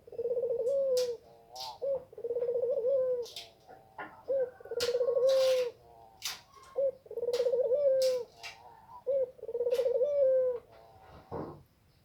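A dove cooing: five long rolling coos about two seconds apart, each led by a short note, with brief sharp high-pitched sounds in between.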